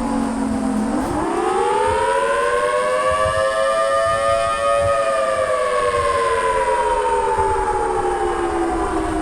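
Outdoor civil defense warning siren sounding several pitches at once. It winds up sharply about a second in, peaks around four to five seconds, then slowly winds down.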